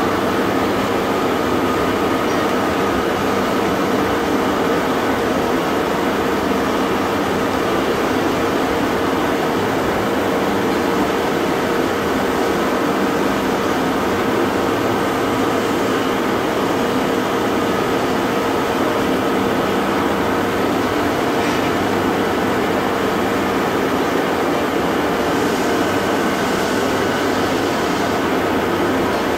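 Steady machinery drone of a bronze foundry: an even, loud rush with a couple of steady hum tones running under it, unchanging while molten bronze is poured into the moulds.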